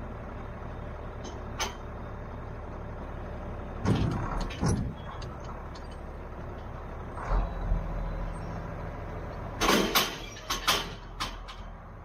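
John Deere tractor engine idling steadily. Several loud metallic clunks and knocks sound over it, with a cluster of them near the end.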